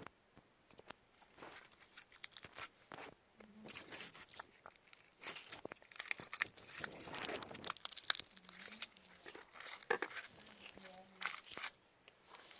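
Clear slime being squeezed and stretched by hand, giving a run of sticky clicks, pops and crackles that are busiest in the middle.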